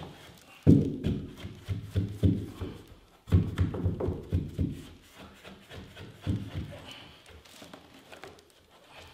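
Dull knocks and thumps on a carpeted wooden stair tread, in two quick irregular runs that start about a second in and about three seconds in, then a few fainter knocks, as a carpet tile is worked onto the bottom step.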